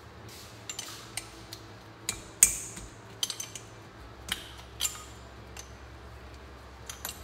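Irregular metal clinks and taps of a wrench against the engine while it works on the cam chain tensioner bolt, the loudest a ringing clink about two and a half seconds in.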